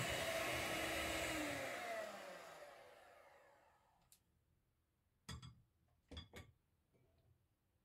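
Electric hand mixer whirring as its beaters whip an egg-and-sugar batter, then switched off, its pitch falling as it winds down to a stop over about two seconds. A few light knocks follow, two of them close together, as the mixer is put down.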